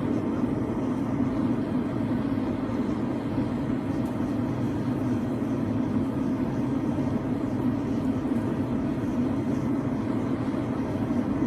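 Forge burner running steadily while it heats thin flat steel stock, a constant even rush with no breaks.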